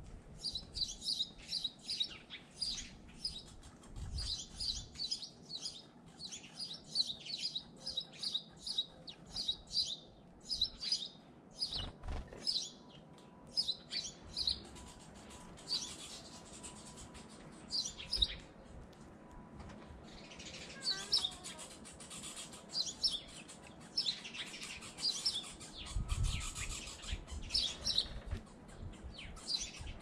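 Small birds at a feeder chirping: rapid runs of short, high chirps, thinning out about halfway through. A few low thumps come in between, the strongest near the end.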